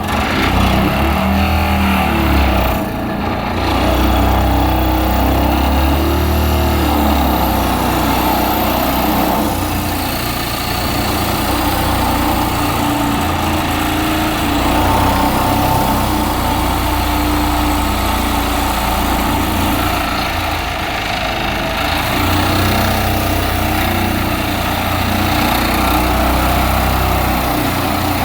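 Excavator with a hydraulic side-grip vibratory pile driver running steadily, with a strong low hum under shifting engine and hydraulic tones.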